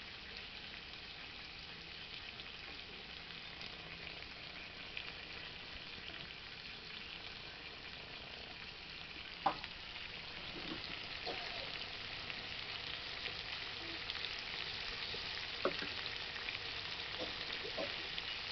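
Bombay duck (lote fish) curry sizzling in its oil in a metal kadai on the fire, a steady crackling hiss that grows a little louder about halfway through, with a few sharp clicks. The oil has separated from the gravy, the sign that the curry is cooked.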